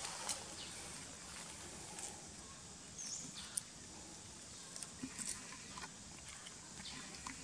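Monkeys crunching and chewing cucumbers: scattered crisp crunches and clicks over quiet outdoor ambience, with one short high chirp about three seconds in.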